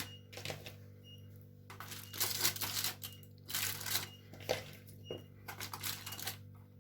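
Aluminium foil crinkling and rustling in irregular bursts as food is handled and arranged on it, over a steady low hum.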